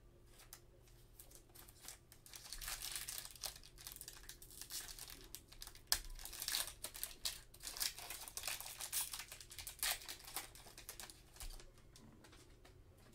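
Plastic wrapper of a trading card pack crinkling and tearing as gloved hands rip it open, a dense run of crackles with one sharp snap about halfway through.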